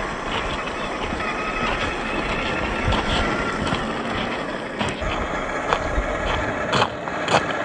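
Scale RC crawler trucks driving over loose gravel: brushed electric motors and drivetrains whirring under the crunch of tyres on stones, with a few sharp stone knocks in the second half.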